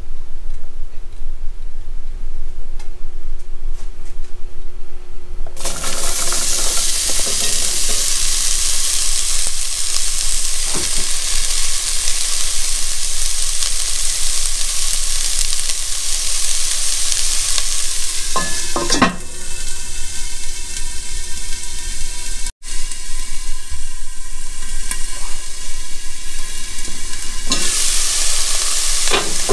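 Diced onion sizzling in hot oil in a cast-iron Dutch oven; the sizzle starts suddenly about six seconds in and stays steady. A couple of knocks come in the second half, one near the end.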